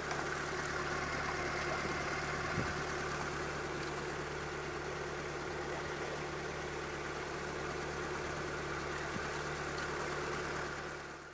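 Narrowboat's diesel engine running steadily at low cruising revs, a constant low drone that fades out near the end.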